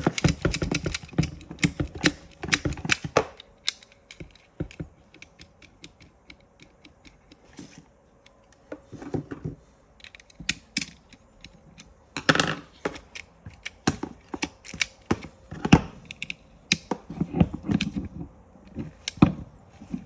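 2010 Toyota Hilux seatbelt retractor being handled and taken apart: irregular clicks, clacks and rattles of its small plastic and metal parts, busiest in the first few seconds, sparser for a while, then in clusters again from about twelve seconds in.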